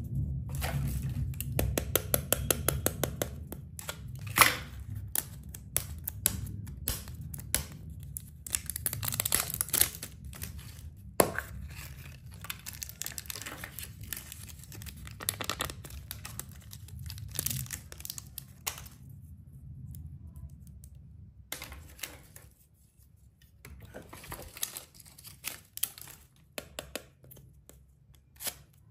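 Hands handling plastic surprise eggs and candy packaging: wrappers crinkling and tearing, with many small plastic clicks and taps.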